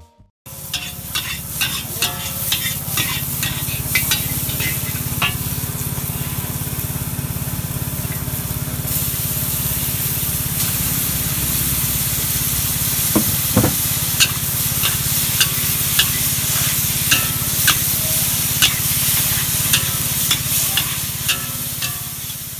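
Beef, cabbage and tomato stir-frying in a large wok: a steady sizzle with a metal spatula repeatedly scraping and clacking against the wok.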